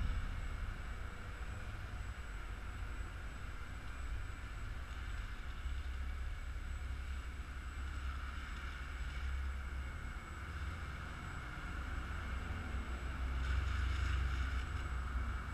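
Low wind rumble on the microphone over a faint, steady whir of a Walkera QR X350 Pro quadcopter hovering at a distance. A car drives past near the end, swelling the noise.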